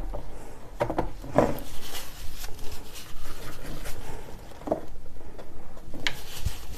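Paintbrush working oil paint, the bristles rubbing in short, irregular strokes.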